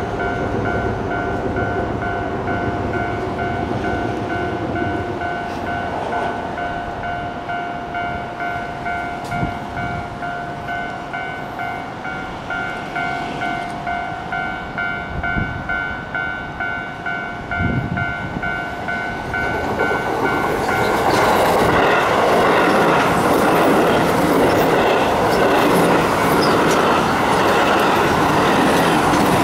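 Japanese level-crossing warning bell ringing in quick repeating electronic pulses while a Keio Line train passes over the crossing. The bell cuts off about two-thirds of the way through, and a louder, steady rushing of the train takes over to the end.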